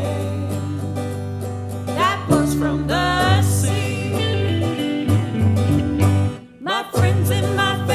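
A band's recorded song: guitars over sustained bass notes, with a sung vocal line in the middle. The music drops out briefly a little after six seconds in, then comes back in.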